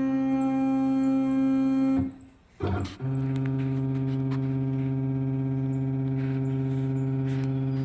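Shapeoko 5 CNC router's stepper motors whining steadily as the gantry travels. One move cuts off about two seconds in, a short blip follows, then a second long move at a different pitch runs until it stops near the end.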